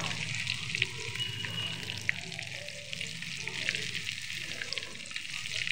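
Batter-coated paneer cubes deep-frying in hot oil: a steady sizzle full of small crackles as the oil bubbles around them, while a metal spoon stirs them in the pan.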